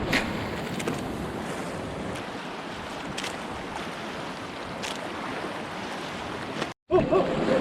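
Ocean surf and wind buffeting the microphone make a steady rushing noise, with a few faint clicks. The sound cuts out completely for a moment near the end, then a voice begins.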